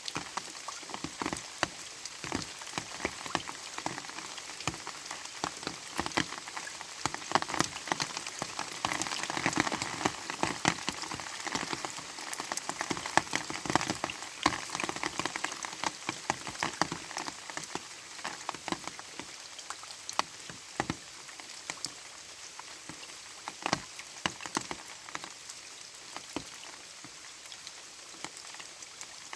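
Light rain falling: a steady hiss with many distinct drop hits, busier for several seconds in the middle.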